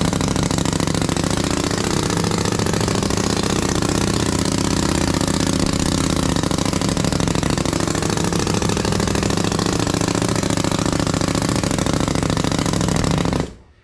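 Pneumatic sand rammer hammering rapidly and without pause as it packs molding sand into the drag of a foundry flask, then cutting off suddenly near the end.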